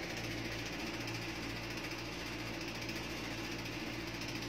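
Steady mechanical hum with a fast, even rattle from a small motor running.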